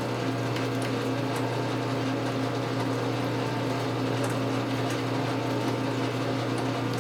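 Geared metal lathe running, its motor and headstock making a steady hum with a few light ticks.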